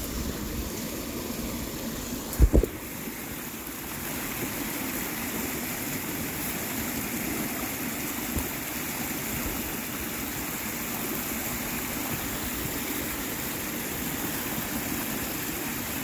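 A high, muddy creek rushing steadily past the bank. A brief low double thump about two and a half seconds in, and a smaller knock a few seconds later.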